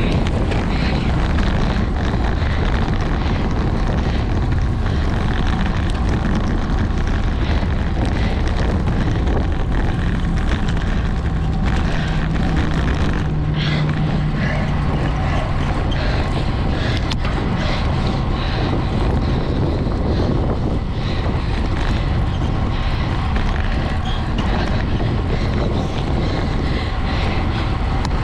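Steady wind rushing over the microphone of a camera on a road bike riding at race speed, with a faint low hum passing through the middle.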